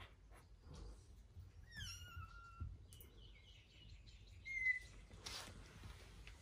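Young kittens mewing in thin, high-pitched calls that fall in pitch: a longer mew about two seconds in, a quick run of short mews around three seconds, and a brief sharper one near five seconds that is the loudest. Faint taps and a short rustle from the kittens moving about.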